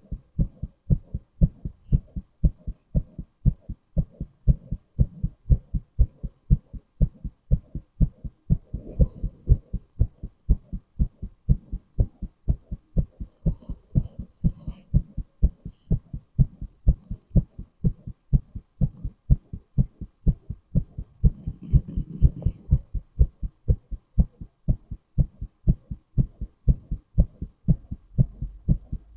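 A man's heartbeat recorded close up, beating steadily and evenly with deep, low thumps. Two faint brief rustles come through, about nine and twenty-two seconds in.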